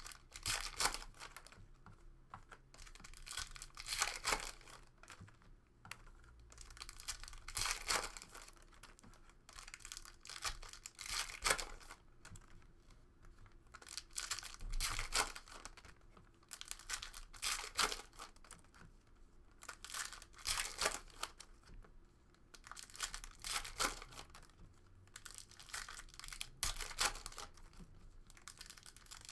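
Trading card packs being torn open and their wrappers crinkled, with cards handled, in irregular rustling bursts every second or two.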